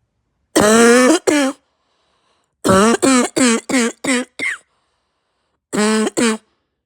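A person's harsh, barking cough, from a raw, sore throat and heavy chest. There are ten coughs in three fits: two, then a quick run of six that grow shorter and end in a brief rising squeak, then two more near the end.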